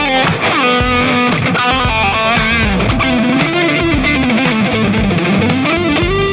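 Yamaha Pacifica 212 electric guitar played through a Valeton Dapper Amp Mini, improvising a lead line. Held notes and a quick run of notes are followed by string bends that swing the pitch up and down, ending on a held note.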